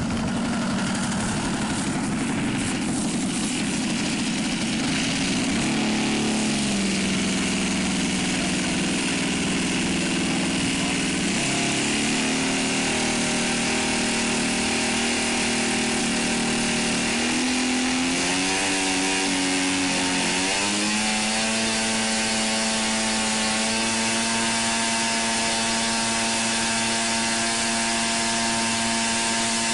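Model airplane engine running on the ground, its speed stepping down and back up with the throttle, then revving up about twenty seconds in and holding steady at a higher speed.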